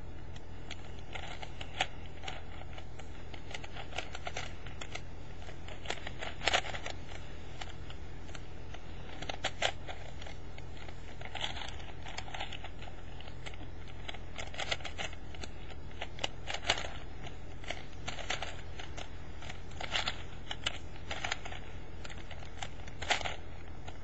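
Plastic layers of a 4x4x4 Rubik's Revenge cube turning through an algorithm, irregular clicks and clacks over a steady low hum.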